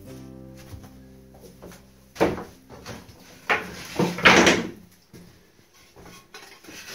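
Wooden prop boards knocking and scraping as they are wedged up against a van's ceiling to press rigid foam insulation in place. There is a knock about two seconds in, another at three and a half seconds, and a longer scraping bump around four seconds.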